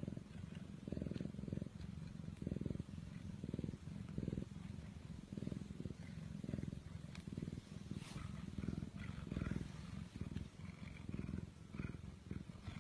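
Domestic cat purring up close, the purr swelling and fading with each breath.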